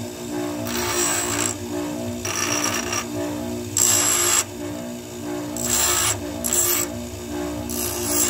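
Electric bench grinder running with a steady hum while a small block of wood is pressed against its grinding wheel in short passes, giving about six brief rasping grinds. The loudest grind comes about four seconds in.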